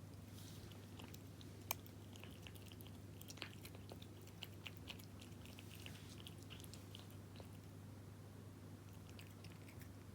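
A cat chewing wet cat food in jelly: faint, irregular small wet clicks and smacks, with one sharper click a little under two seconds in, over a steady low hum.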